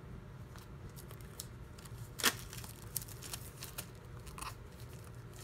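Plastic shrink wrap being peeled and crinkled off a hardcover album: scattered faint crackles, with one sharper crackle a little over two seconds in.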